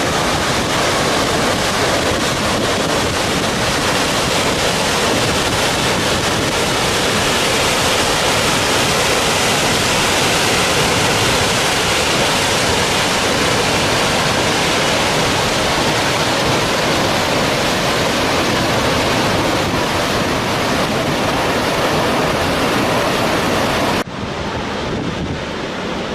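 Waterfall rushing, a loud, dense, even noise. About 24 seconds in it cuts suddenly to a quieter, duller rush of water.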